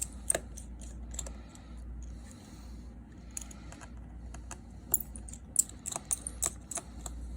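Light, scattered clicks and taps of small hand tools and phone parts being handled during an iPhone repair, coming thicker in the second half.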